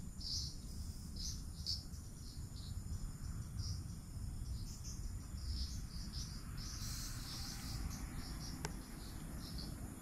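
Crickets chirping in short, irregular repeated pulses over a steady high-pitched insect buzz, with a low rumble underneath.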